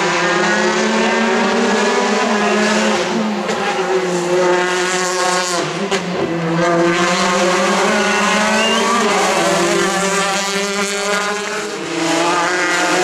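Peugeot 208 rally car engine revving hard, its pitch climbing and dropping again and again through the gear changes as it drives up twisting tarmac road. The sound jumps abruptly about six seconds in and again near the end.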